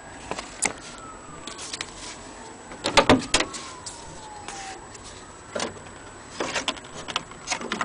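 Irregular knocks and clicks from handling the wooden longcase clock case and laying a paper card on its base, loudest about three seconds in and in a cluster near the end. A faint siren wails slowly up and down in the background.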